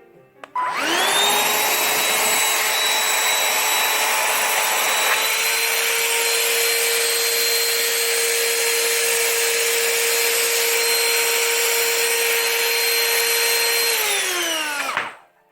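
Gtech Multi Platinum cordless handheld vacuum switched on, its motor spinning up with a rising whine to a steady, loud high-pitched running sound. Near the end it is switched off and the whine falls in pitch as the motor winds down.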